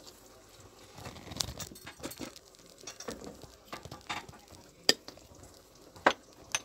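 Handling noises: irregular rustling and light tapping, then a few sharp clicks, typical of a pepper grinder being set back among glass spice jars on a shelf.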